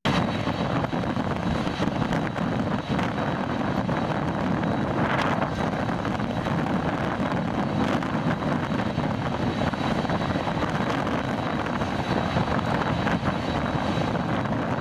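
Jet engines of an ANA Boeing 787-8 Dreamliner (Rolls-Royce Trent 1000 turbofans) running loud and steady at takeoff, with a faint high whine, under heavy wind buffeting the microphone.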